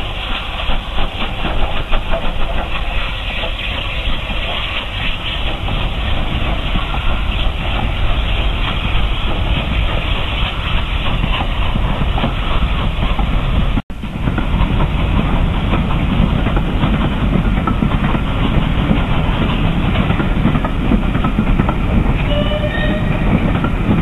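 Southern Railway Bulleid West Country class Pacific No. 34067 Tangmere working hard as it pulls its train away from the station: a steady, loud rush of exhaust and escaping steam. The sound cuts out for an instant about two-thirds of the way through.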